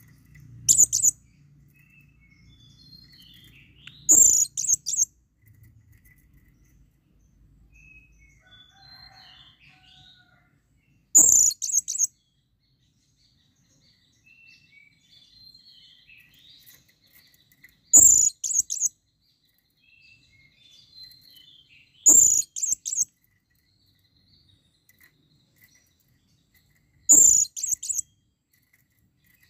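Male blue-crowned hanging parrot (serindit) calling to a female: six short bursts of rapid, high-pitched notes, each under a second long, several seconds apart.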